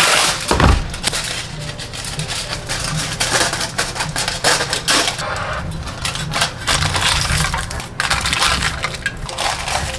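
Aluminium foil being pulled off its roll, torn and crinkled tightly over the tops of small ceramic cups: dense, irregular crackling and rustling.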